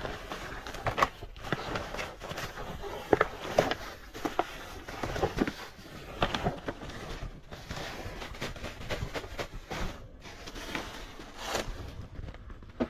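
Plastic trash bags and packaging rustling and crinkling, with scattered sharp clicks and knocks of items being shifted, as hands dig through the rubbish in a dumpster.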